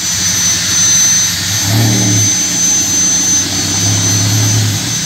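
Suzuki Carry pickup's engine running steadily, its low note swelling briefly twice, with a thin high-pitched whine held over it.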